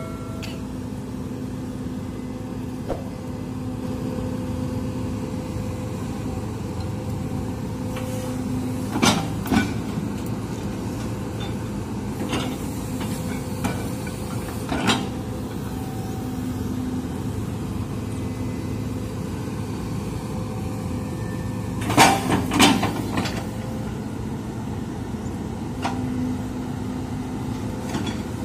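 Hitachi hydraulic excavator's diesel engine running steadily while digging, with a few sharp metallic clanks from the bucket and boom linkage. The loudest clanks come as a quick cluster about two-thirds of the way through.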